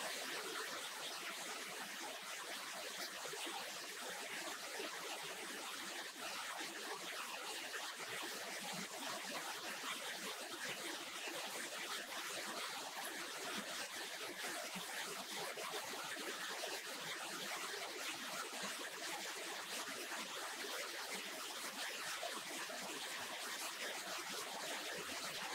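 Steady, even hiss with no distinct knocks, steps or voices.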